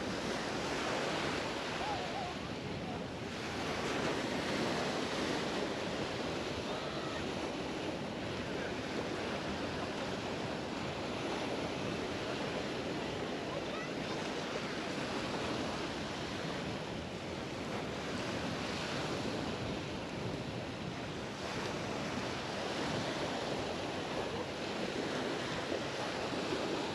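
Mediterranean surf washing onto the beach: a steady rush of small waves that swells and eases every few seconds.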